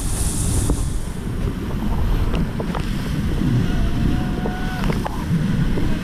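Rushing whitewater of a river rapid around an inflatable raft, a steady low rumble with wind buffeting the camera's microphone.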